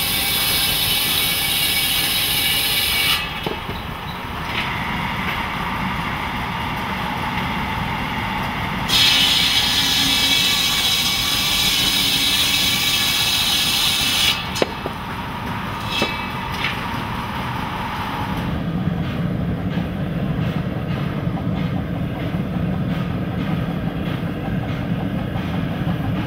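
Circular buzz saw cutting through a birch log: two cuts of several seconds each, one at the very start and one from about nine to fourteen seconds in, with the spinning blade's steady whine between them. A few sharp knocks follow, the whine stops at about eighteen seconds, and a low steady rumble fills the rest.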